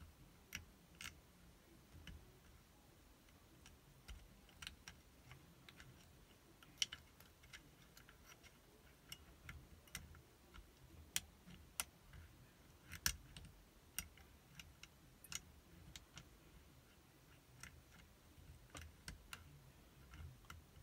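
Faint, irregular metallic clicks and ticks of a pick working the levers of a safety deposit box lever lock while the key holds tension, with a few sharper clicks near the middle.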